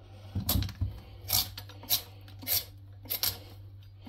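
Hand peeler scraping the hard rind off a butternut squash in about six short strokes, roughly one every half second.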